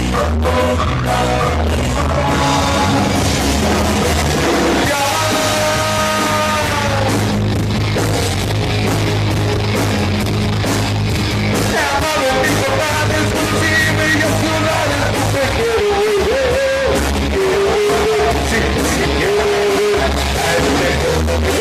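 A rock band playing live through a PA system: a singer's voice over amplified guitar and a steady bass line.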